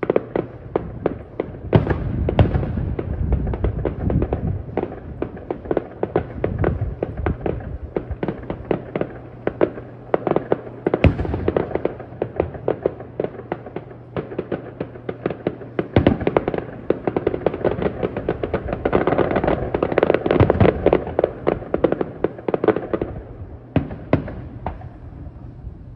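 Aerial fireworks display: a rapid, dense string of bangs and crackles from bursting shells. Stronger booms stand out about two seconds in, at about eleven seconds and at about sixteen seconds, with the thickest crackling around twenty seconds in, and the firing thins out near the end.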